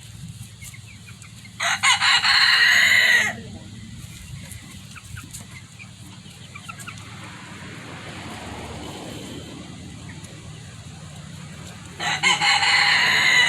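A rooster crowing twice, about ten seconds apart, each crow about a second and a half long.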